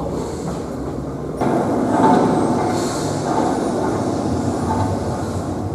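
Steady rumbling, clattering machinery noise from an exhibit's sound effects, which steps up sharply about a second and a half in.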